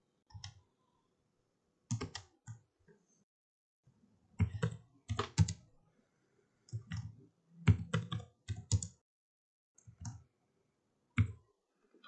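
Computer mouse and keyboard clicks, short and sharp, coming irregularly and often in quick runs of two or three.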